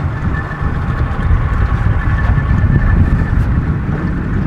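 A small boat's motor running steadily, with wind rumbling on the microphone.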